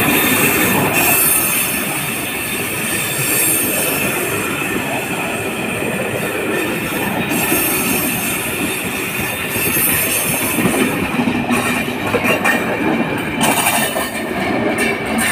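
Czech electric multiple unit SM488.0 (class 460) coupled with a class 560 unit, rolling slowly past with a steady high wheel squeal. Wheel clicks over rail joints come in over the last few seconds.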